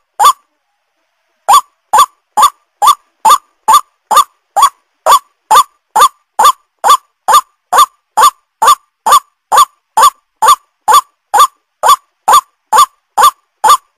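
White-breasted waterhen (ruak-ruak) call repeated over and over as a bird-luring track: short, loud calls at about two per second. They start after a brief pause about a second and a half in and run on without a break.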